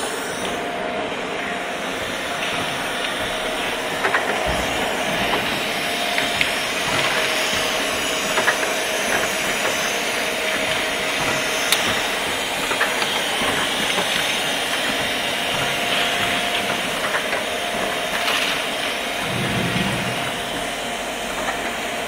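Five-colour pad printing machine with extractor running: a steady hiss of compressed air and machinery, with a faint steady hum and irregular pneumatic clicks and clacks.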